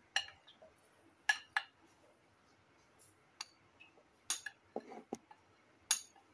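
Metal spoon clinking and scraping against a glass bowl as gram flour is scraped out into a steel mesh sieve for sifting: about eight sharp, irregular clinks with soft scrapes between them.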